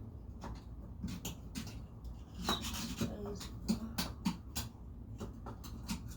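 A scattered series of light clicks and knocks from plumbing parts being handled, over a steady low hum, with a few brief low murmurs of a voice midway.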